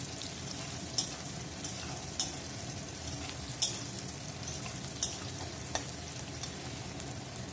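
Potatoes, carrot and green chillies sizzling in oil in a metal wok (kadai), with a metal spatula clicking and scraping against the pan about six times as they are stirred.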